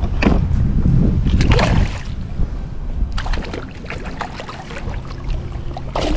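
Irregular splashing and sloshing of water, a hooked largemouth bass thrashing at the surface as it is fought in, over a steady low rumble.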